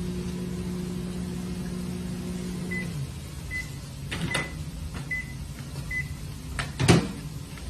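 Microwave oven humming as it heats the rice, shutting off about three seconds in, then five short beeps signalling the end of the cycle. A couple of clicks follow, and a sharp knock near the end.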